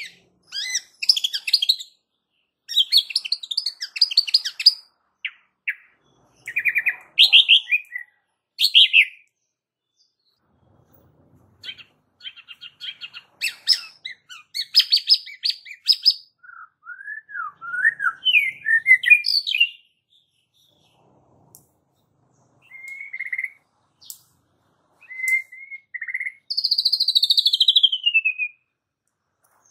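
White-rumped shama singing in separate phrases of rapid trills, chattering notes and whistled slurs, with a pause of about two seconds near the middle and a long falling whistle near the end.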